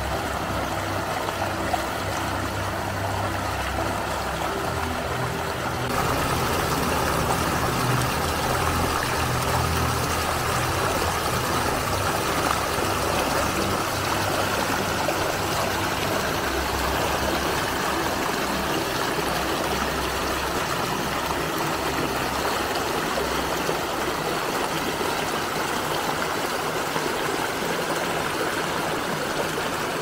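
Shallow forest stream running and trickling over rocks and a stone slab: a steady rush of water that gets louder and brighter about six seconds in. A low hum runs underneath for the first few seconds.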